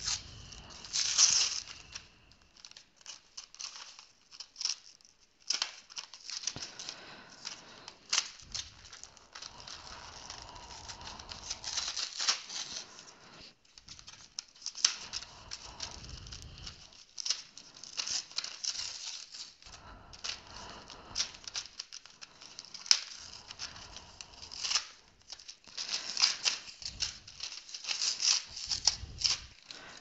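Paperboard backing of a blister pack being torn open by hand, in irregular bursts of ripping and crinkling with short pauses and small taps between.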